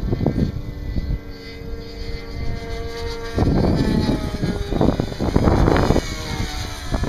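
Radio-controlled model airplane in flight, its engine and propeller giving a steady hum for the first few seconds. The pitch then glides up and down as the plane passes.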